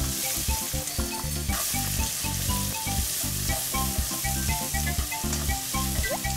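Braised burdock strips and sliced garlic sizzling in olive oil in a frying pan as they are stirred, a steady hiss, with light rhythmic background music underneath.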